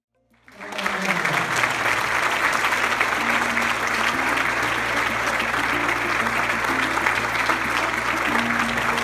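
A large crowd applauding, with music playing under it. The sound fades in from silence about half a second in.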